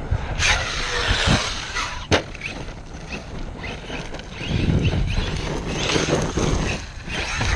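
Electric TEKNO RC monster truck driving over gravelly dirt: faint motor whine rising and falling with the throttle over tyre and gravel noise and a low rumble, with a few sharp knocks in the first two seconds.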